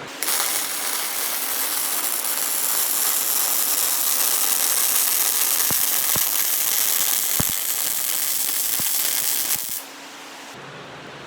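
MIG welder laying a bead on 3-inch solid steel bar: a steady, loud crackling sizzle from the arc. It starts sharply just after the beginning and cuts off suddenly near the end as the bead is finished.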